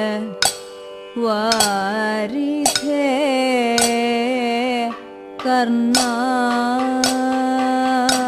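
Women singing the opening of a Kathakali padam in raga Kanada in long, ornamented held notes over a steady drone, pausing briefly for breath twice. Chengila gong and ilathalam cymbals strike the time at regular intervals.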